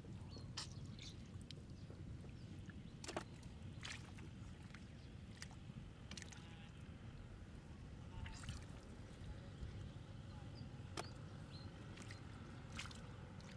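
Faint water sloshing and splashing: irregular sharp splashes and clicks about once a second over a steady low rumble.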